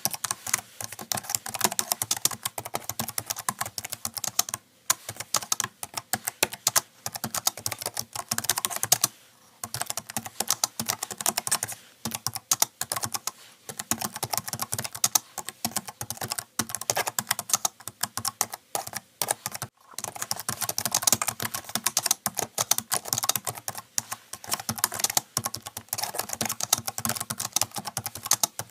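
Fast typing on a computer keyboard: a dense run of key clicks with a few brief pauses, the longest about nine seconds in.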